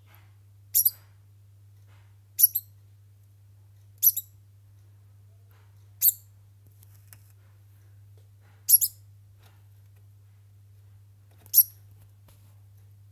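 A degu giving short, very high-pitched squeaks, six in all, some of them doubled, a second and a half to three seconds apart; sad squeaks, in the owner's word.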